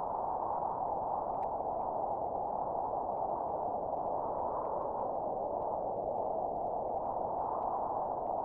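A steady, even rushing drone, mid-pitched and unchanging throughout.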